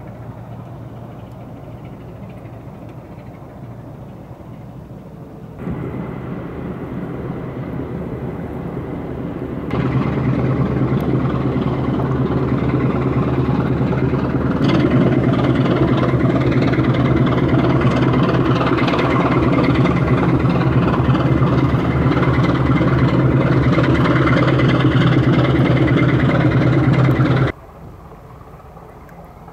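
Diesel engine of a passing inland motor cargo ship: a steady low drone that grows louder in steps, then drops abruptly near the end to a much fainter background hum.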